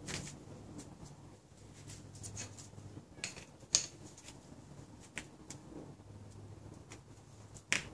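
Scattered small metallic clicks and ticks of a wrench working on a power steering pressure switch as it is tightened into a new high-pressure hose fitting, over a faint steady low hum.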